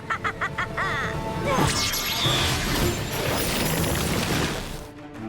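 Cartoon soundtrack: dramatic music with crashing, whooshing sound effects that swell and then fade near the end. A short voiced sound, like laughter, comes in the first second.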